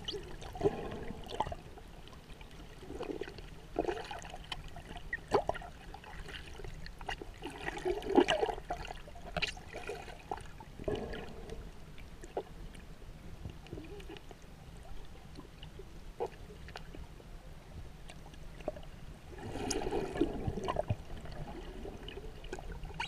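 Water heard underwater: irregular sloshing, bubbling and gurgling with scattered clicks over a steady low rumble, as a snorkeler moves nearby. It is busiest about eight seconds in and again near the end.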